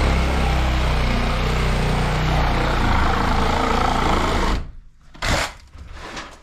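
A power tool's electric motor running loudly and steadily, then cutting off abruptly a little over four seconds in, followed by a single sharp knock.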